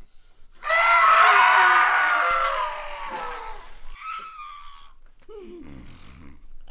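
A man screaming: one long, loud scream that slowly falls in pitch, then a shorter, quieter cry about four seconds in and a low falling groan near the end.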